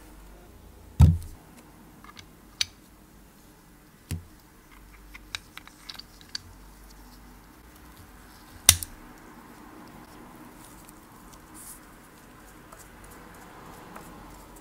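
Handling of a Robur watch-glass press and its metal and plastic adapter dies: scattered clicks and knocks as the dies are picked up and fitted, the loudest about a second in and again near nine seconds, with a run of small ticks between.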